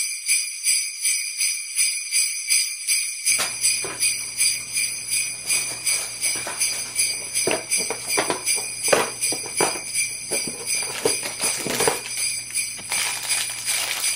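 Jingle bells shaken in a steady rhythm, about two shakes a second. From about three seconds in, short clicks and rustles come in under them as a cardboard advent calendar door is pressed open and a small plastic bag of LEGO pieces is handled.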